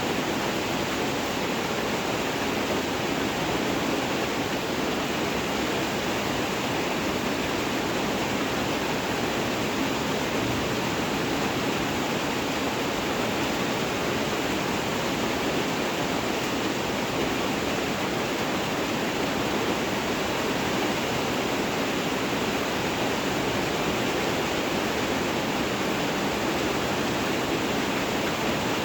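Steady, even rain noise with no distinct drops, thunder or other events.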